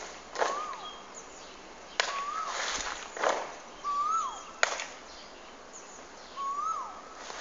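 Feet stamping on the ground during a marching drill, several uneven strokes, each followed by a short, high squeak that rises and then falls.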